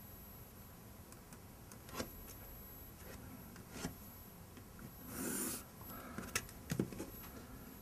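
Pencil drawing one short line on paper along the edge of a plastic set square: a brief scratch a little past the middle. Around it are a few light taps and ticks from the pencil and set square being handled, with a quick cluster of ticks just after the scratch.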